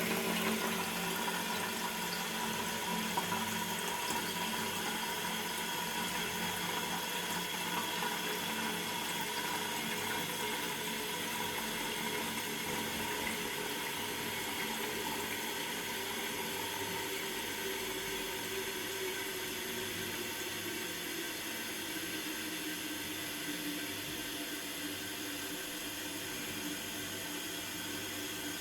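Toilet tank refilling through its fill valve after a flush: a steady rush of running water with faint tones that drift slowly in pitch.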